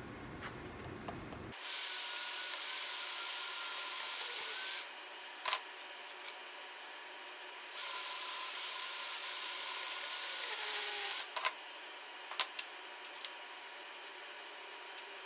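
Greenlee No. 531 portable band saw cutting through a steel pipe clamped in a vise, in two cuts of about three seconds each with a pause between. A few short metallic knocks follow each cut.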